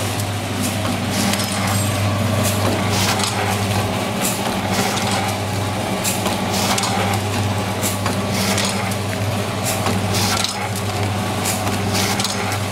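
DXDK-40 vertical granule packing machine running: a steady low hum with a regular clack, roughly once a second, as the sealing jaws and cutter close on each sachet.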